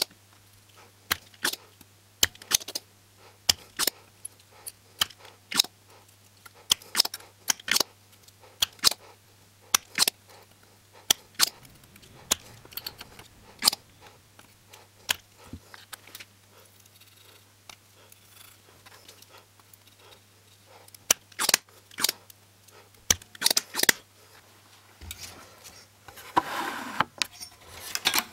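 Sharp clicks and snaps, about one or two a second, from a spring desoldering pump sucking solder off the pins of the TV board's vertical IC. Near the end, rustling and clattering as the circuit board is handled.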